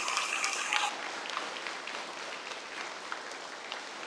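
Audience applause that dies away about a second in, leaving a few scattered claps that fade out.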